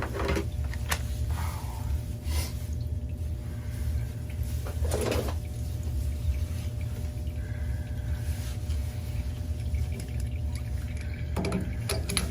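Steady low hum with a few scattered knocks and clunks.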